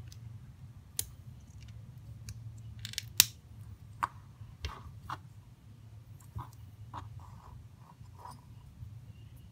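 Scattered light clicks and taps of small plastic kit parts and string being handled, with one sharper click about three seconds in, over a low steady hum.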